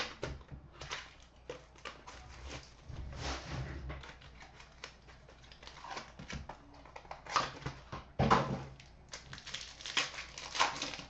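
Trading-card packs being handled and opened: wrappers crinkling and tearing and cards shuffled, in irregular rustles and clicks with louder bursts in the second half.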